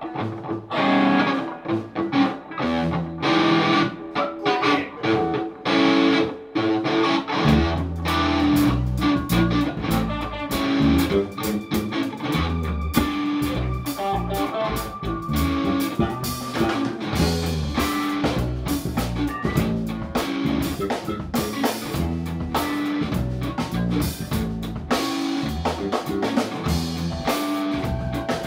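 Live rock band playing with electric guitars, bass guitar and drum kit. The first several seconds are lighter guitar playing, then the bass and drums come in fully about seven seconds in.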